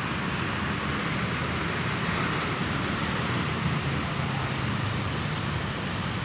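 Steady vehicle and road-traffic noise: an even engine rumble with tyre and road hiss.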